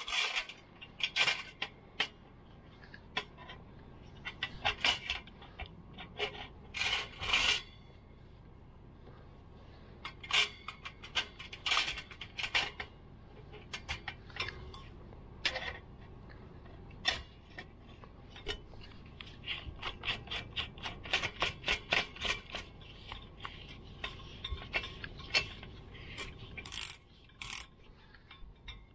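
Irregular metallic clicks, clinks and scrapes from handling a cordless drill and a steel hose clamp against a chrome wire shelf, coming in scattered bursts. The drill's motor is not running.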